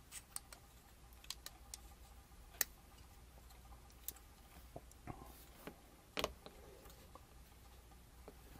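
Faint, scattered clicks and taps of a small clear lucite frame holding a stack of pouch cells being handled and strapped with rubber bands. There is one sharper click about two and a half seconds in and a few more knocks around five to six seconds.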